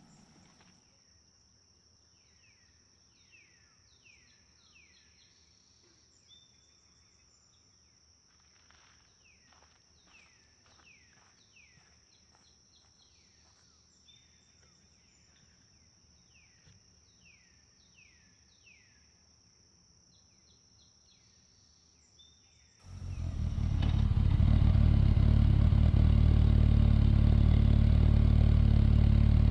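Quiet open-air ambience with birds chirping, short downward-sliding calls in little clusters, over a faint steady high-pitched whine. About 23 seconds in, a motorcycle engine cuts in loud and runs steadily at cruising speed.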